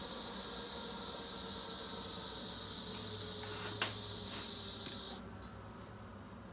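TIG welding arc joining a cast iron manifold to a stainless steel V-band flange: a steady hiss with a high whine, with a few sharp clicks in the middle. The arc cuts off about five seconds in.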